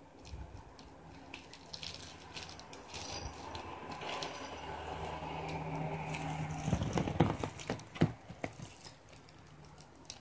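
A baby handling plastic toys and a board book on a play mat: scattered clacks and rattles, with a cluster of sharper knocks about two-thirds of the way through.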